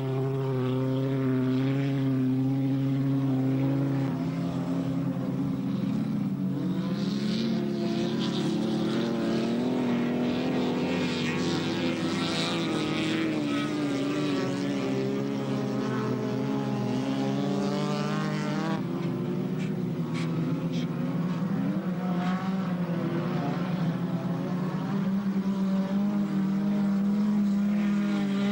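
Several racing car engines running hard at once on an ice track, their pitches rising and falling as cars pass. A hiss sits over the engines from about six to nineteen seconds in.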